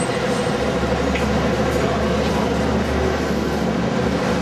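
City bus engine running at the stop, a low steady rumble over busy street traffic noise; the rumble swells about half a second in and eases near the end.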